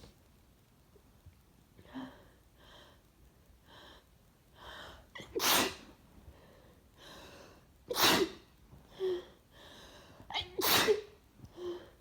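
A woman sneezing three times, about two and a half seconds apart, each sneeze a sudden loud blast. The first is led by a run of short catching inhales as it builds.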